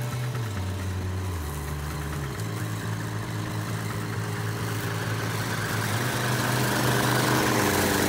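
Small gasoline engine of a hybrid remote-control slope mower running steadily as the mower drives over grass, growing louder over the last few seconds as it comes closer.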